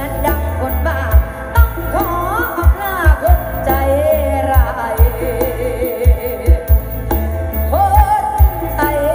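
Music with a singing voice played loud through OD15 subwoofer cabinets and a twin-cone top speaker, with deep bass drum hits as the loudest part.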